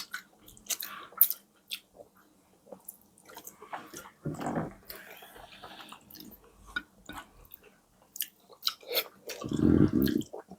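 Close-miked eating: chewing and wet mouth clicks and smacks from people eating a meal of steamed fish, okra, crackers and bammy. A brief low voice sound comes about four seconds in and a longer one near the end.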